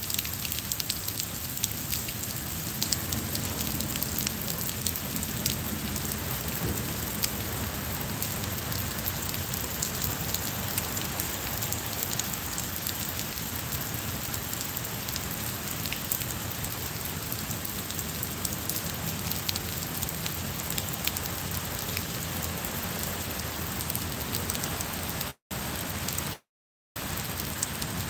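Steady rain falling on stone paving and garden plants, a dense even hiss with many small drop ticks. The sound cuts out briefly twice near the end.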